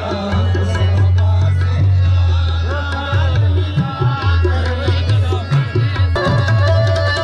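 Music with a percussion beat over a steady deep bass and a wavering melodic line; the texture shifts about six seconds in.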